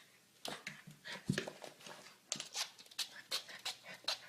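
A dog breathing in quick, short puffs, panting and sniffing in an irregular string of faint breaths.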